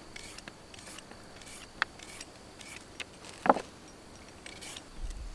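Knife slicing carrots on a plastic cutting board: a row of short cutting strokes about every half second, with two sharper knocks of the blade on the board, the louder one a little past halfway. A low rumble sets in near the end.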